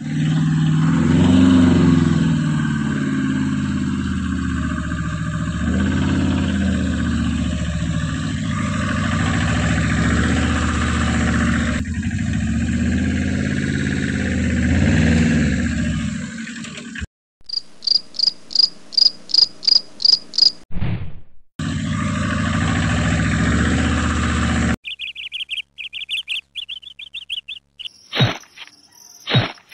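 A vehicle engine runs with a steady low rumble for the first half. It cuts off abruptly for about three seconds of evenly spaced high chirps, about three a second, then rumbles again briefly. High warbling chirps and sharp high chirps follow near the end.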